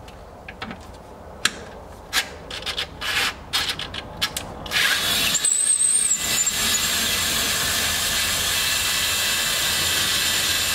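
A few light clicks and knocks of parts being handled, then, about five seconds in, a cordless power driver starts running steadily on the bolts near the rear strut tower, with a brief high whine as it starts.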